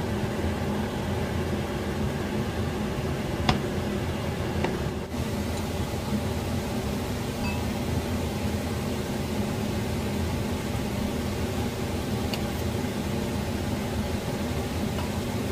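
Steady fan hum from kitchen appliances, with two light clicks of metal utensils a few seconds in.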